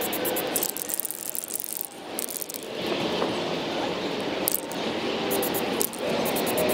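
Aerosol spray can in use: the hiss of paint spraying onto a plastic trim panel, mixed with the quick rattle of the mixing ball in the can as it is shaken.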